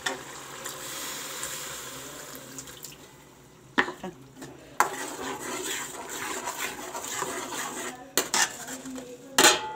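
A metal spoon stirring spices into sizzling tomato-onion masala in a metal karahi, scraping the pan and clanking against it about four times, the loudest clank near the end.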